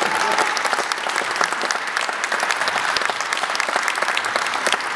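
A group of people applauding, many hands clapping steadily.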